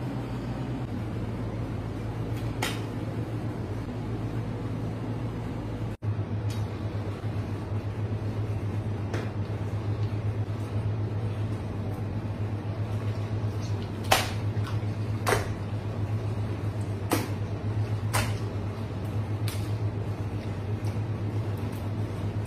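Raw octopuses being handled and laid out on a plastic cutting board, giving several separate sharp knocks, spaced a second or more apart, in the second half, over a steady low hum.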